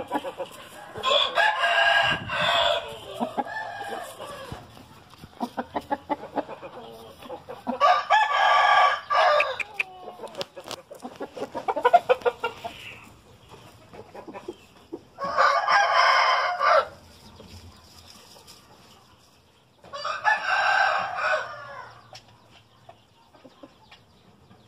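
Gamecock roosters crowing four times, each crow about one and a half to two seconds long and spaced several seconds apart, with short clucks and clicks between.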